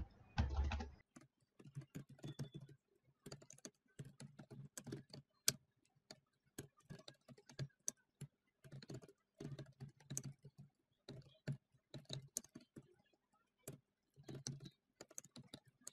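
Typing on a computer keyboard: quick runs of keystrokes with short pauses between them, as commands are entered line by line.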